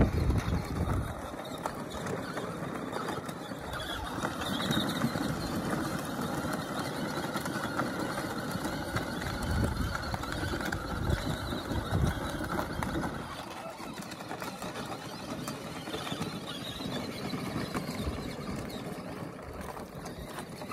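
Two small youth ATVs driving over a gravel and dirt track: steady motor and tyre-on-gravel noise, easing a little in the last several seconds.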